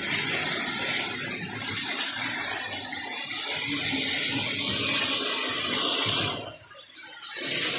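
Lionel model trains running on the track: a steady whirring hiss of motors and wheels that drops away sharply about six and a half seconds in.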